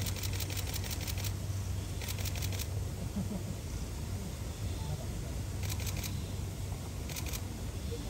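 Camera shutters firing in rapid bursts of clicks, four bursts in all, with the last two near the end, over a steady low hum.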